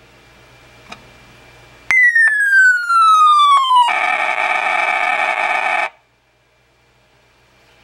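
1989 New Star Corporation electronic sound-effects horn playing an effect: a whistle falling steadily in pitch for about two seconds, then a loud harsh buzzing noise for about two seconds that cuts off suddenly.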